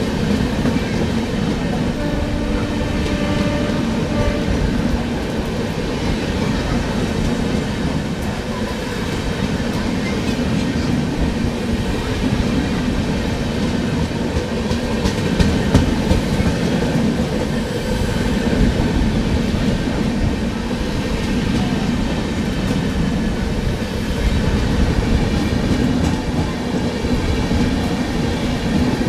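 Two Indian express trains running side by side on parallel tracks, heard from an open coach window: a steady rumble of steel wheels on rail with clickety-clack, as a train of red LHB coaches passes close alongside.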